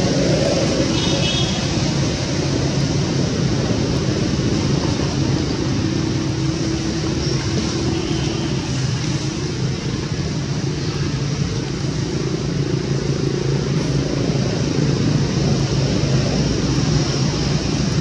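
Steady low rumble with hiss, even in level throughout, with no distinct event standing out.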